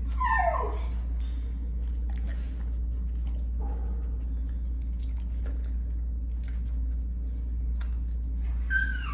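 Dog whining: a high whine that falls in pitch right at the start and a short high whimper near the end, over a steady low hum.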